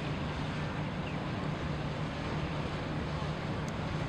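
Steady low drone of a boat engine on the river, under a haze of wind noise on the microphone.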